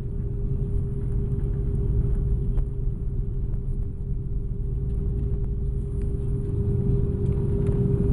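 Airbus A330-300 airliner noise: a steady low rumble with a constant mid-pitched hum running through it.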